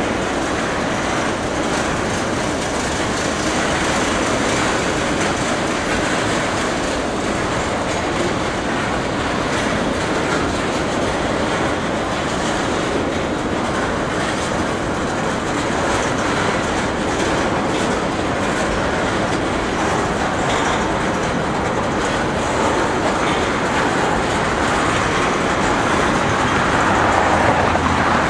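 CSX freight train's cars rolling past, a steady, unbroken rail noise that swells slightly near the end.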